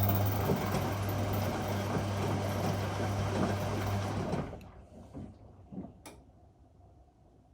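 Whirlpool Indiana 1400 washing machine running: a steady mechanical hum with a rushing, water-like noise over it, which stops about four and a half seconds in. A few soft knocks and a single click follow.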